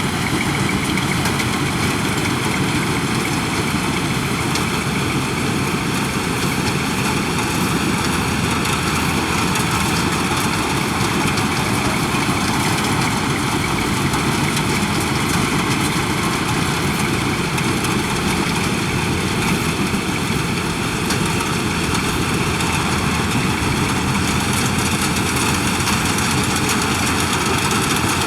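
Yanmar combine harvester running steadily, its engine and machinery making a continuous drone with steady tones that holds at an even level throughout.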